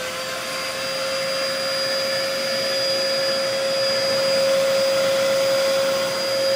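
Dyson upright vacuum cleaner running at full speed with all its filters in place, drawing air through its hose. It makes a steady whine over a rush of air.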